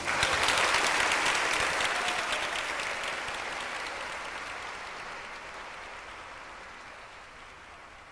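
Audience applauding, strongest at the start and fading steadily away.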